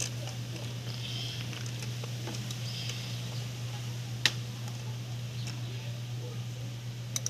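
Hydraulic clutch release bearing being handled and fitted over a transmission input shaft: faint handling noises and one sharp click about four seconds in. A steady low hum and faint high chirps run underneath.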